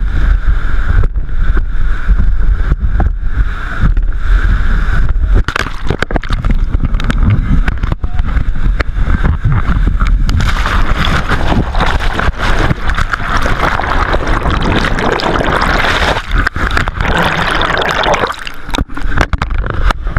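Whitewater rapids rushing and crashing around an inflatable raft, with wind buffeting the microphone in the first few seconds. The water roar builds from about five seconds in and is loudest from about halfway to near the end as the raft plunges through the rapid.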